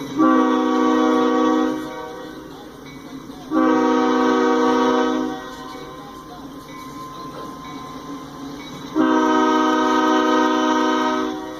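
Diesel freight locomotive's multi-chime air horn sounding three long blasts, the second a few seconds after the first and the third after a longer pause, over the passing train's steady rumble.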